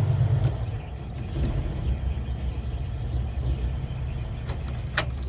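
1977 Ford F100 engine running just after starting on a new ignition switch, its low idle easing down about half a second in. A few sharp clicks near the end.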